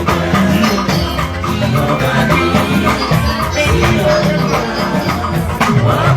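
Band music with a steady beat and shakers rattling along.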